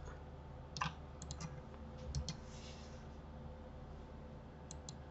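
Scattered computer mouse and keyboard clicks, single and in quick groups of two or three, over a faint steady hum.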